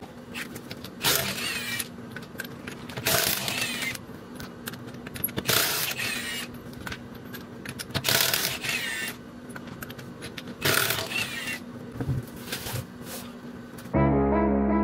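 Metal clicking and rattling in bursts of about a second, five or six times, as lug nuts are worked off a car wheel, over a faint steady hum. Music comes in abruptly near the end.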